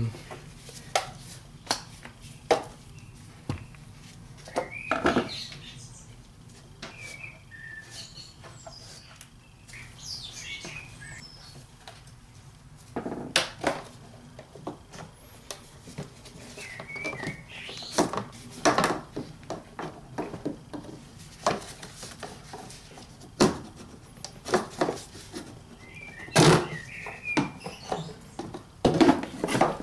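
Hands working a large corrugated engine-bay hose loose and pulling it off: irregular knocks, clicks and handling noise of plastic and rubber, with a few short high squeaks.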